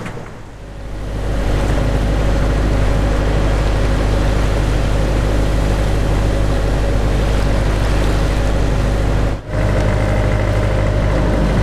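A sailboat's inboard engine running steadily while motoring, a low even hum. It fades in about half a second in and drops out for an instant about two seconds before the end.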